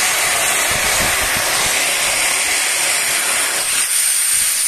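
Gas hissing steadily and loudly out of the open body of a gas pipe valve that has been taken apart for cleaning and greasing, once the rag blocking the opening is pulled out.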